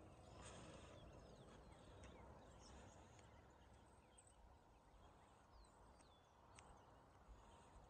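Near silence: faint outdoor ambience with a few short, high chirps from small birds.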